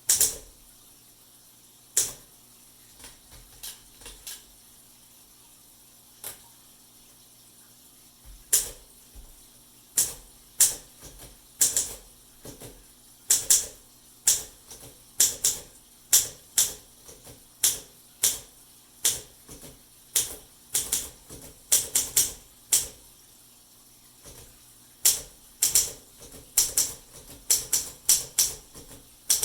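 1955 Olympia SM3 manual portable typewriter being typed on: sharp, irregular keystroke clacks in bursts. There is a long pause between about two and eight seconds in and a shorter one a little before the end.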